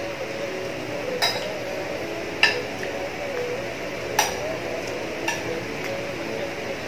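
Metal spoon clinking against a plate while eating, four sharp clinks about a second apart, the second the loudest.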